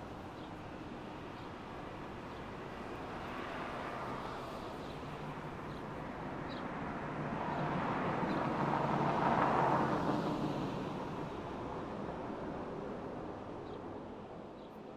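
Outdoor ambience with a vehicle passing by: a steady rush that slowly builds to a peak about nine or ten seconds in, then fades away.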